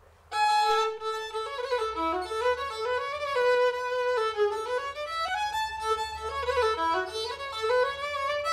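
Background music: a solo fiddle melody of held and sliding notes, starting just after the opening.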